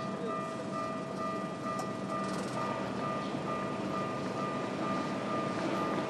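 Japanese railway level-crossing alarm ringing, a steady electronic tone with a higher tone pulsing over and over, while a Keikyu Daishi Line train runs at the crossing.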